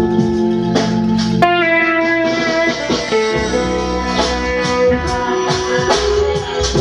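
Pedal steel guitar played with a steel bar: sustained chords that slide up and down between pitches, with soft plucked attacks.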